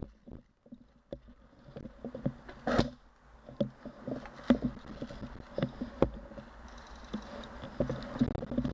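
Close footsteps scuffing on a dirt path, with the player's gear and replica rifle knocking and rattling in irregular short knocks, a couple a second.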